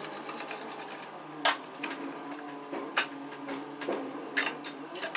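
Sharp metal clanks and knocks, four loud ones roughly a second and a half apart with lighter knocks between, over a faint steady hum: steel plates and tools being handled as a tacked-up steel shield box is taken apart.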